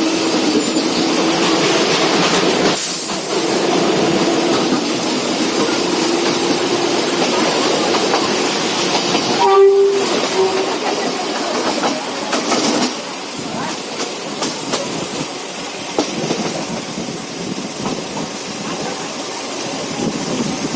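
Indian Railways trains running at speed on the track, a steady rumble with wheel clatter. A short horn blast sounds about ten seconds in.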